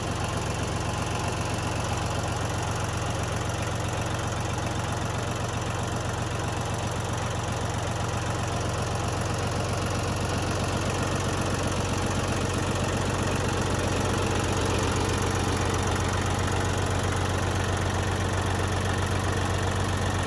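Yanmar YM2202D compact tractor's diesel engine idling steadily.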